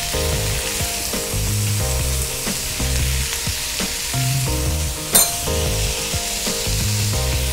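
Cauliflower florets sizzling in hot fat in a nonstick frying pan as they are stirred and turned with a spatula, with one sharp tap of the spatula on the pan about five seconds in. Soft background music runs underneath.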